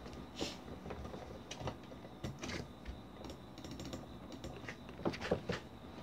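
Computer keyboard keys pressed in an irregular run of separate keystrokes, with a louder cluster of clicks near the end.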